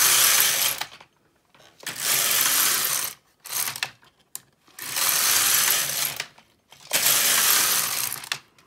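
Silver Reed LK150 mid-gauge knitting machine carriage pushed back and forth across the needle bed, knitting plain rows: four passes, each lasting about a second and a half, with short pauses between as the carriage changes direction.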